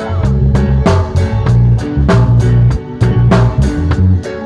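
Band music with a drum kit and bass keeping a steady beat.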